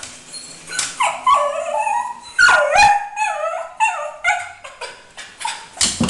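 Cocker spaniel giving quick, high-pitched yips and whining barks, several a second, each dropping in pitch: excited barking at a bird it cannot reach.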